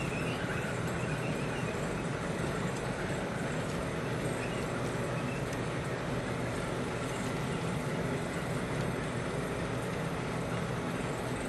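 Long HO-scale model freight train rolling past on the track: a steady, even rumble of many cars' wheels on the rails.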